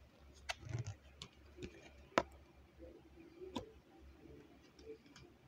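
Tarot cards being handled: a few light, irregular clicks and taps, the sharpest about two seconds in.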